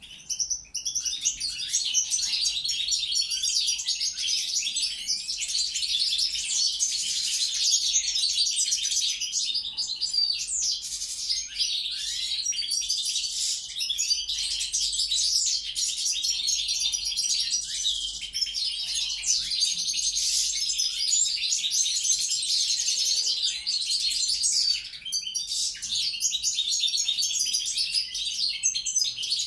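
European goldfinch of the Balkan race (Carduelis carduelis balcanica) singing a long, continuous song of fast twittering and trilled notes, broken only by a brief pause just after the start and another about 25 seconds in.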